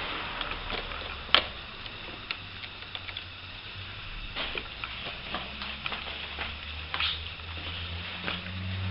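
Scattered light clicks and taps of tools and metal parts being handled inside a car door while the window regulator is bolted in, over a faint low hum that grows near the end.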